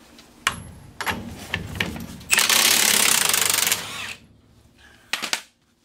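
Cordless impact wrench hammering a suspension bolt loose: a few short clicks and brief bursts, then about a second and a half of loud, rapid hammering, and two short bursts near the end. The bolt breaks free easily, with no sign of being seized.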